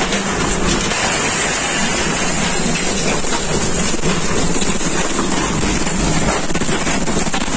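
Violent wind and driving rain of an EF4 tornado hitting, buffeting the phone's microphone: a loud, steady rush of noise that never lets up.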